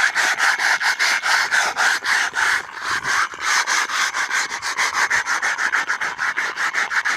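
Sandpaper scrubbing by hand in quick back-and-forth strokes, about six or seven a second, sanding off old paint.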